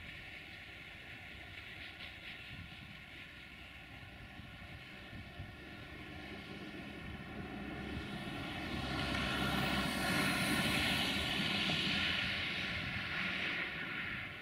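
A distant engine drone swells over several seconds, is loudest about ten to twelve seconds in, and fades again near the end.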